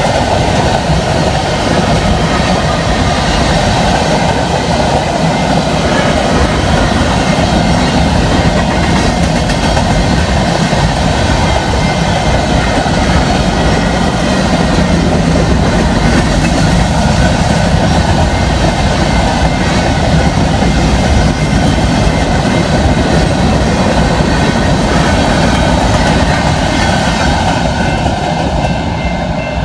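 Freight train cars rolling past at close range: a steady, loud rumble of steel wheels on rail with clickety-clack over the rail joints, easing off slightly near the end.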